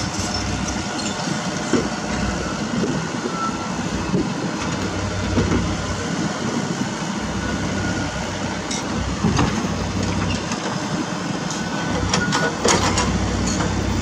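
Everdigm EHB06 hydraulic breaker on a Komatsu PC78US mini excavator hammering into rock, a continuous mechanical clatter over the excavator's running diesel engine.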